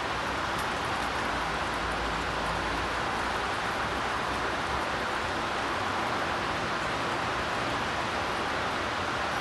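Steady rain falling, an even hiss with faint ticks of individual drops.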